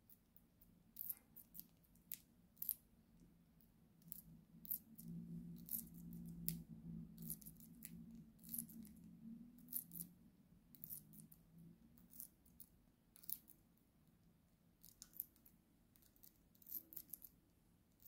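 Budgerigar nibbling fresh leafy greens: faint, crisp beak clicks and snips at an irregular pace, with a faint low hum through the middle stretch.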